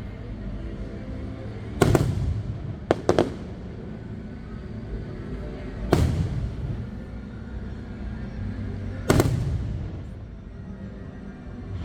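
Fireworks bursting: five sharp bangs with a booming tail, two of them close together about three seconds in, over music playing underneath.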